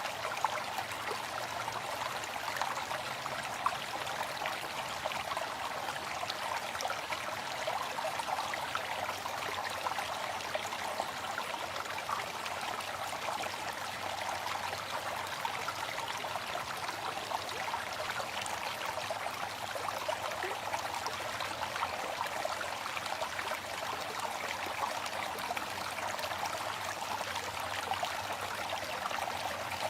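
Waterfall: water falling and splashing in a steady, unbroken rush, with fine crackling spatter throughout.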